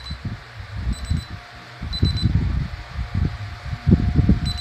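Short, high-pitched beeps from a DSC alarm keypad's buzzer, about once a second, over low rumbling noise.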